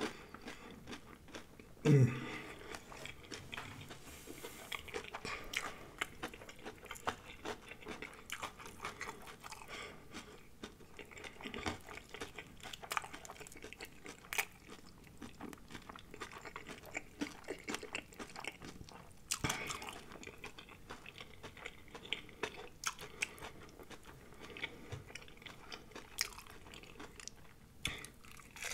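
Close-miked chewing of breaded fried shrimp, the crisp batter crunching and crackling in many small clicks. About two seconds in comes a short hum from the eater, falling in pitch.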